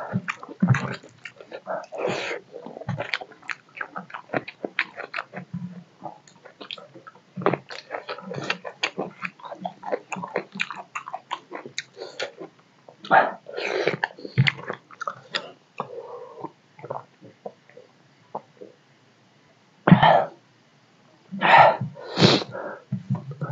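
Close-miked eating sounds: a person chewing rice and fish curry with many quick wet clicks and smacks of the mouth, eased off for a moment, then a few loud breathy bursts near the end.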